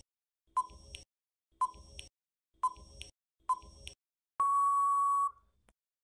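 Quiz countdown timer sound effect: short beeps about once a second, each followed by a faint tick, four times, then one longer steady beep lasting about a second, signalling that time is up.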